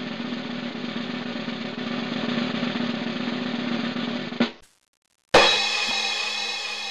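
Snare drum roll, steady and even, cut off by a sharp hit a little past four seconds in. After a brief silence, a loud crash comes in with ringing tones that slowly fade away.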